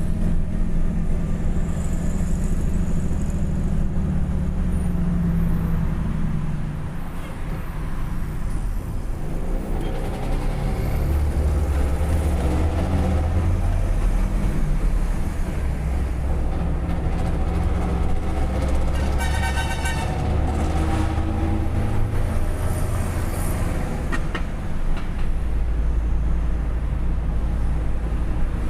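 Vehicle engine with a straight-through exhaust running loud and low, easing off about 7 seconds in and building again from about 10 seconds.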